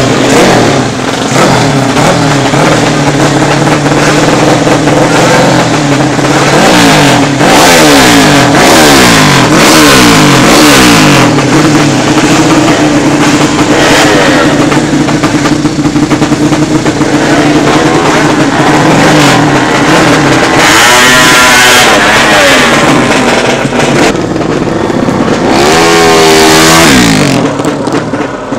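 Drag-racing motorcycle with a BSS aftermarket exhaust, revved hard over and over, its pitch sweeping up and down, with two big rises and falls in the last third. Near the end the engine note drops away as the bike rides off.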